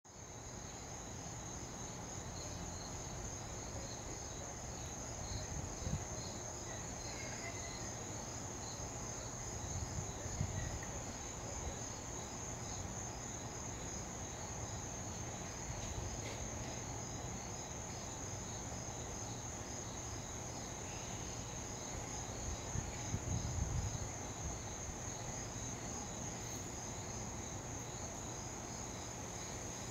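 A steady high-pitched chorus of insects trilling, over a low rumble with a few brief louder bumps.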